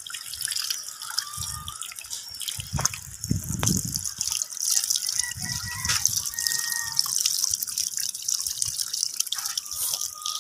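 Water running from a garden tap and splashing onto a rooster's wet feathers as it is washed by hand, a steady hiss of water, with a few dull bumps in the middle.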